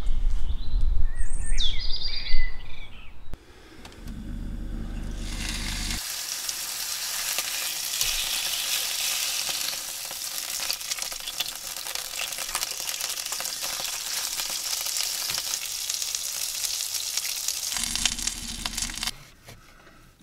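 Venison steak sizzling in a ridged grill pan on a gas stove: a steady frying hiss that starts about five seconds in and stops shortly before the end. Before it there is a low rumble and a brief bird call.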